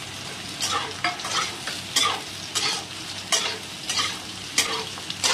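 Metal spatula scraping and turning boiled potato and fried pointed gourd (parwal) pieces in a kadhai of hot mustard oil, with regular strokes roughly every two-thirds of a second over a steady sizzle of frying.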